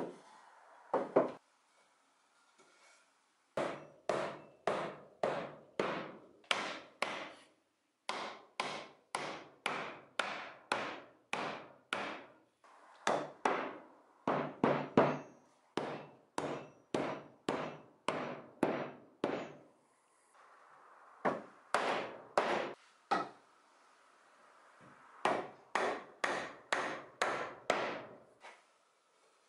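A mallet knocking pine mortise-and-tenon joints together: runs of steady blows, about two a second, with short pauses between the runs.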